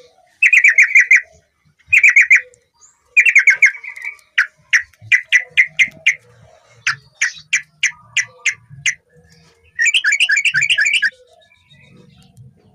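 Yellow-vented bulbul (trucukan) singing in loud, chattering phrases. Three quick trills come first, then a run of separate sharp notes at two or three a second, and one more fast trill about ten seconds in.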